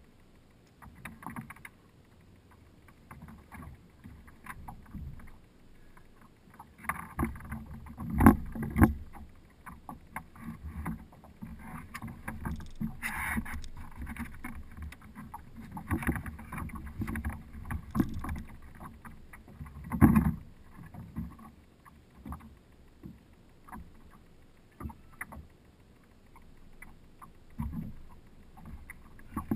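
Water lapping against a plastic kayak hull, with irregular knocks and bumps from movement aboard. The loudest thumps come about eight seconds in and again about twenty seconds in.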